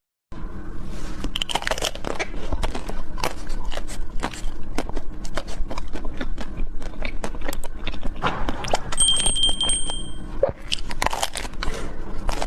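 Close-up mouth sounds of someone eating Korean cake: a dense, irregular run of bites and chewing clicks and smacks.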